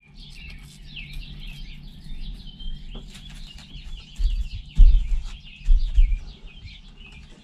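Small birds chirping steadily with many quick high calls. A few dull low thumps come about halfway through as hands work the LED string light's wire into the truck topper's carpeted liner.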